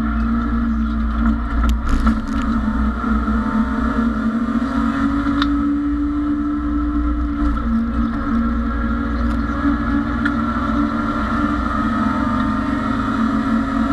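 BMW E30 race car's engine running hard under load, heard from inside the stripped cabin over road and wind noise. The engine note climbs slightly a few seconds in, and a few sharp clicks come about two seconds in.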